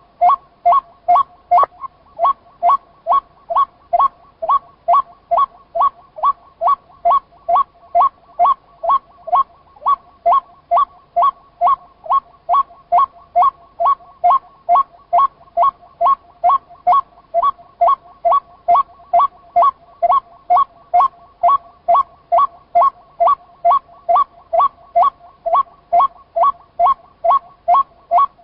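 White-breasted waterhen calling: an unbroken run of short, evenly spaced 'kwok' notes, about two a second, each at the same pitch and loudness.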